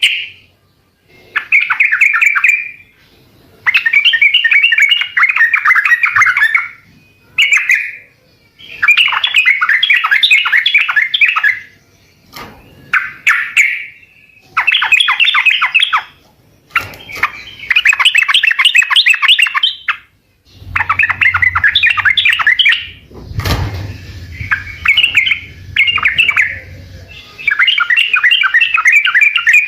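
Yellow-vented bulbul (trucukan) singing loud, bubbly chattering phrases of quick notes, about a dozen bursts of one to three seconds each with short pauses between. A low rumble with a dull thump comes in about two-thirds of the way through.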